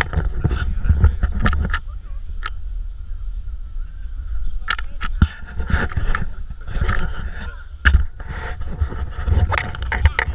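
Wind and handling noise rumbling on a handheld action camera's microphone, with scattered knocks and clicks, the loudest about five and eight seconds in.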